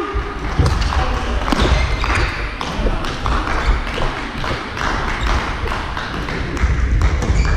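Badminton doubles being played in a sports hall: a run of sharp racket hits on the shuttlecock and thuds of feet on the court, over a steady hubbub in the echoing hall.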